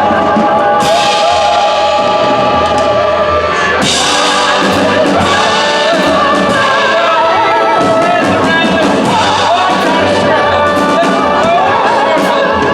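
A choir singing with live band accompaniment, with regular drum hits.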